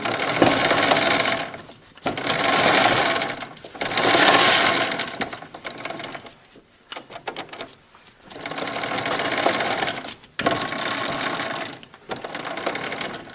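A power tool, likely an impact driver or ratchet, run in six or seven bursts of one to two seconds each while fasteners on the snowblower's drive assembly are tightened.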